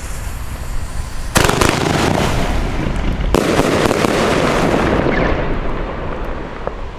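Pyroland Seven 2 One Glittergewitter firework: a sharp bang about a second and a half in, then a second sharp bang about two seconds later, followed by dense crackling of glitter stars that dies away.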